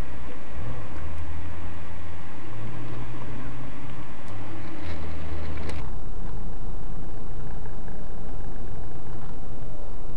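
Dash-cam audio from inside a moving car: a steady engine drone with road and wind noise, its pitch stepping up and down. About six seconds in it switches abruptly, with a click, to another recording of steady hiss and low hum.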